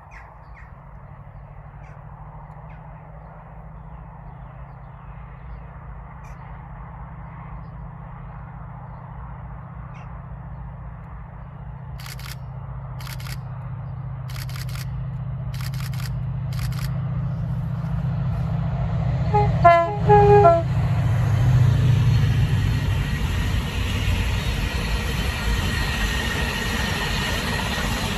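Class 68 diesel-electric locomotive, with its Caterpillar V16 engine, approaching under power; its engine note grows steadily louder. It gives a short two-note horn blast about twenty seconds in, then passes close with rail and wheel noise. A few sharp clicks come a little before the horn.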